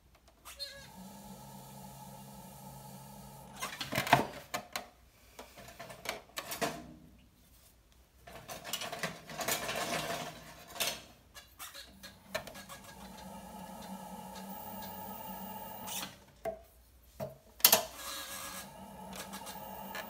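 Electric pottery wheel motor running with a steady hum. The hum gives way in the middle to irregular knocks and rubs of hands on the clay piece and wheel head, and a few sharp clicks come near the end.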